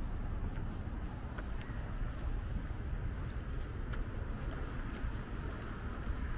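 Steady low rumble of road traffic with outdoor background noise, and a few faint ticks.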